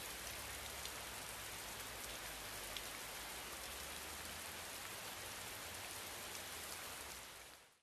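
Steady patter of rain with faint scattered drop ticks, fading out near the end.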